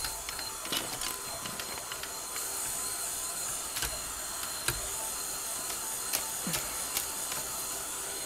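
Handheld craft heat tool blowing steadily, drying freshly applied gel medium on a paper collage, with a few light clicks and taps from handling.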